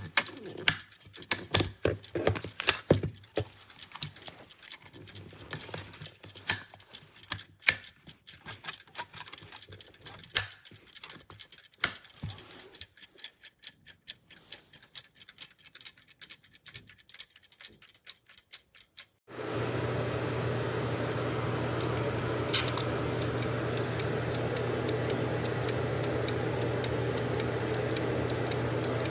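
In-wall countdown timer switch clicking and ticking irregularly. About two-thirds of the way in, a steady hum starts suddenly, and faint regular ticking carries on over it.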